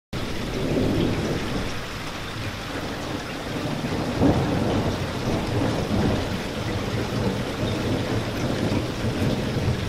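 Steady heavy rain falling, with a low rumble of thunder underneath that swells and fades and is loudest a little over four seconds in.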